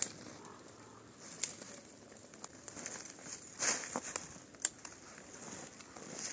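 Dry twigs snapped off bare bushes by hand for kindling: three sharp cracks, the first right at the start, one about a second and a half in and one near two-thirds through, with a burst of rustling branches between them.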